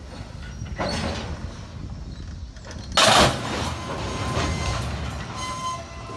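Loaded CSX steel-coil flatcars rolling slowly with a steady low rumble of wheels on rail as the train slows in an emergency brake application after breaking a knuckle. A loud, sharp burst of noise comes about three seconds in, and faint brake squeal near the end.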